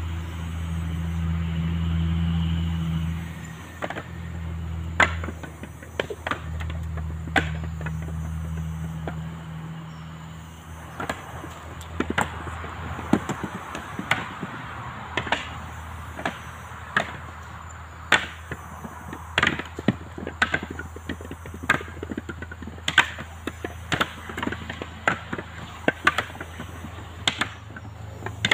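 Husked coconuts knocking against one another in irregular sharp knocks, about one or two a second, as they are tossed onto a pile while being counted. A low engine hum runs under the first ten seconds or so.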